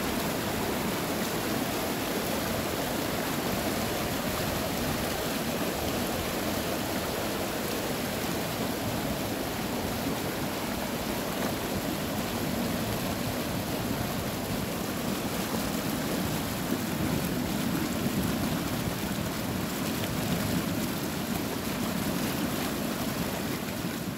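River water rushing over rocks and pouring through wooden sluice boards, a steady, even rush.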